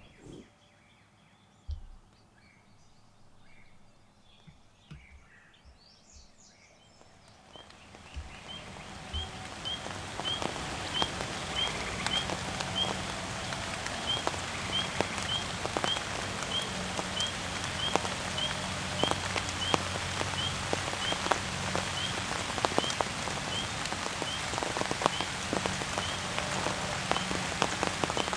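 Rain falling steadily, dense with the patter of drops. It sets in about a quarter of the way through, after a quiet stretch with a few faint chirps. A short high chirp repeats about twice a second over the rain.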